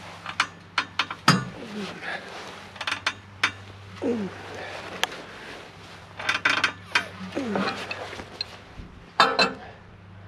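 Irregular metallic clinks and clanks of steel being handled and knocked during fabrication, over a steady low hum. A few short sounds that drop in pitch are mixed in, and the sharpest knocks come about a second in and near the end.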